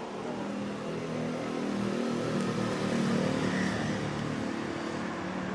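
A motor vehicle engine running nearby with a steady low hum, getting louder about two to four seconds in and then easing off.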